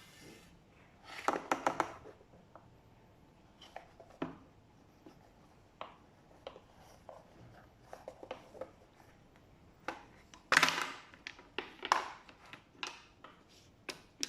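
Scattered clicks, taps and knocks of plastic and metal parts being handled as a pressure washer spray gun is taken apart, with louder bursts of clatter about a second in and about ten seconds in.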